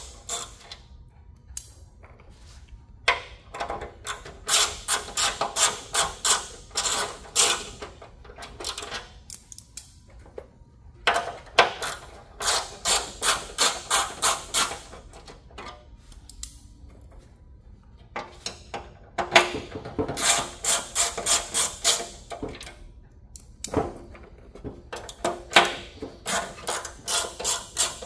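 Mini ratchet with an Allen-bit extension clicking as it backs out the fasteners holding the handle to the plastic infant-warmer bed. Runs of quick, even clicks, about four a second, broken by pauses and a few single sharper knocks.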